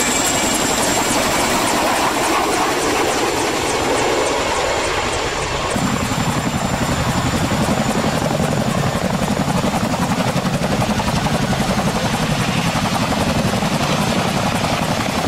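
Helicopter with its rotor chopping rapidly and steadily; the low thudding gets heavier about six seconds in.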